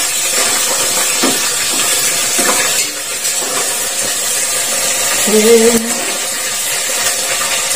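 Sliced onions sautéing in hot oil in a stainless-steel pot on a gas burner, a steady sizzle as they are stirred with a metal ladle. A short pitched sound about five seconds in.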